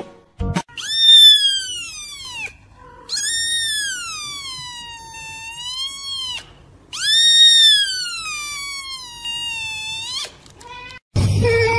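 Grey-and-white kitten meowing three times. Each meow is long and very high, rising and then falling in pitch.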